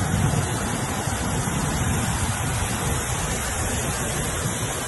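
Floodwater rushing down a street in heavy rain: a steady, unbroken noise of running water and downpour.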